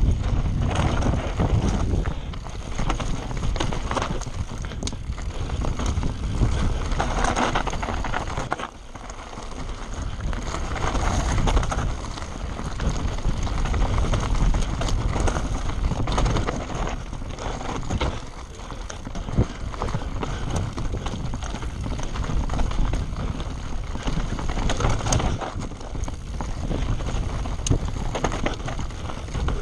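Wind buffeting the camera microphone on a fast mountain-bike descent, over steady tyre noise on loose rock and dirt, with scattered knocks and rattles from a Scott Spark 120 mm full-suspension bike taking rough ground.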